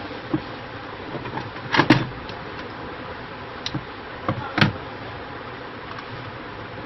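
Black electrical insulating tape pulled off the roll and wound around wire joints: two louder short rips a few seconds apart, with smaller crackles and handling clicks between, over a steady background hiss.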